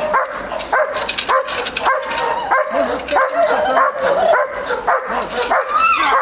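Belgian Malinois barking rapidly and repeatedly, roughly one to two barks a second, aroused and aggressive at a decoy who threatens it with a stick during protection training, the build-up of drive before the bite.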